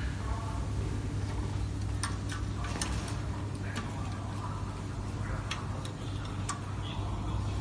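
A few sharp metal clicks and ticks as the blister guide on a blister opening machine is set by hand, over a steady low hum.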